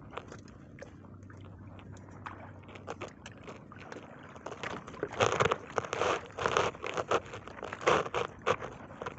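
Close handling noise of fish being worked loose by hand, likely from a fishing net: irregular scraping, crackling and clicking, with louder clusters of scrapes from about halfway through.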